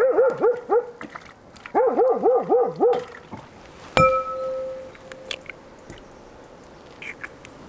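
An animal gives two quick runs of calls, four and then six, each call dipping in pitch and rising again. About four seconds in, an egg is cracked on the rim of a glass mixing bowl: one sharp tap, and the bowl rings briefly. A few faint clicks of shell and dripping egg follow.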